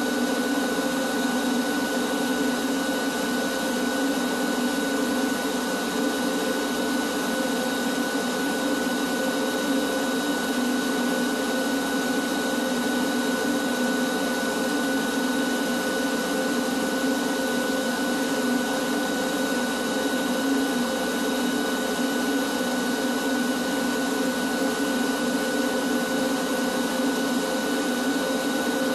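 Shop vacuum running steadily, a constant high whine over its motor hum, as its long hose is held to the ceiling beams and pipes to suck up dust.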